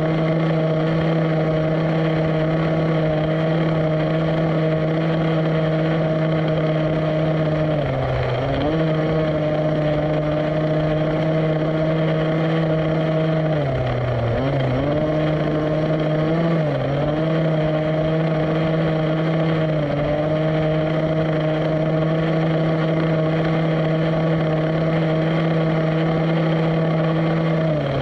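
Rovan 1/5-scale petrol RC buggy's small two-stroke engine running at a steady high pitch. It drops briefly as the throttle eases off about eight seconds in, twice more around the middle, and again a little later, picking back up each time.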